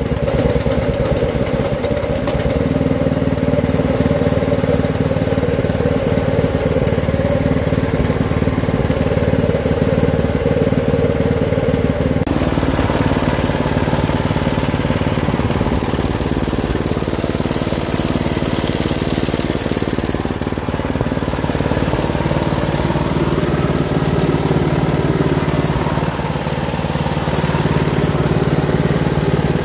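Predator 224 single-cylinder engine running steadily at idle. Its tone shifts about twelve seconds in.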